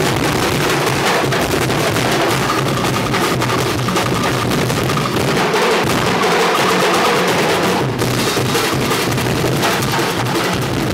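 Percussion ensemble of many drums struck with sticks, playing together in a dense, continuous rhythm.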